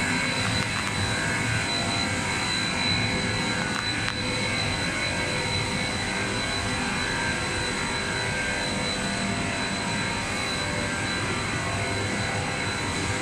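Production-line machinery of an SPC vinyl flooring plant running: the extruder, calender rollers, conveyors and blower fans make a steady, even din with a thin high whine held throughout.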